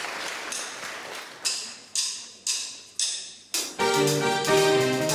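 Applause dying away, then five evenly spaced ringing cymbal taps, about two a second, counting in the band. An electric stage keyboard with a piano sound then starts the song's intro with sustained chords.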